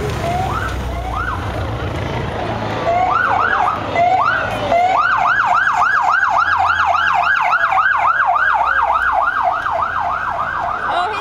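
Police motorcycle siren giving short rising whoops, a few at a time, then from about five seconds in a continuous fast yelp of about four rising sweeps a second.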